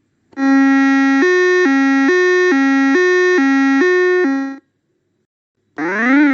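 Orpat toy electronic keyboard playing its built-in sound effects. A synthetic two-tone pattern alternates between a low and a higher note about twice a second for roughly four seconds, like a hi-lo siren, then stops. Near the end a wailing tone starts, sweeping up and down about once a second.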